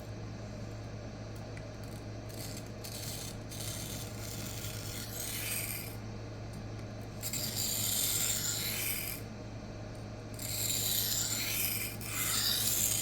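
K110 steel knife blade being stroked across the 400-grit side of a Rikon CBN sharpening plate: a gritty scraping rasp in several long passes, starting a couple of seconds in. A steady low hum runs underneath.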